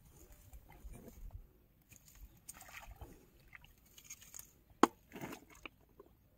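Light sloshing and rustling as a hooked fish is drawn up through floating water hyacinth to the surface and lifted out, with one sharp knock about five seconds in.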